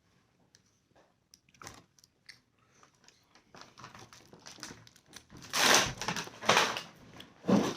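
Close-up handling and eating noises: scattered soft clicks and crinkles, then three louder crunching, rustling bursts in the second half, from fast-food packaging and food.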